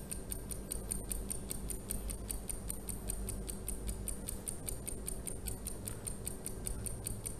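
Clock-ticking sound effect of a countdown timer: a fast, even ticking, several ticks a second.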